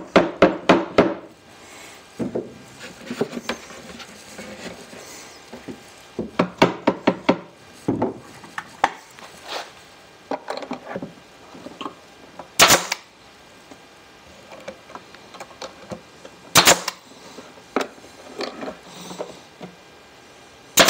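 Wooden mallet tapping the joints of a pine drawer box in quick flurries of knocks, then a pneumatic brad nailer firing single sharp shots into the drawer corner, three in all, a few seconds apart, the last at the very end.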